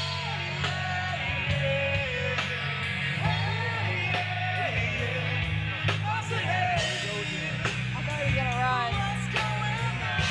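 Live rock band playing a cover song: a singer over bass, guitar and drums, with a steady drum beat.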